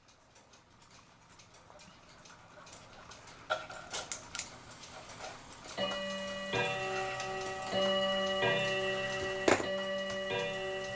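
August Schwer cuckoo clock movement ticking, with light clicks as its levers and wheels are handled. About six seconds in, a steady sound of several held tones joins and runs with short breaks.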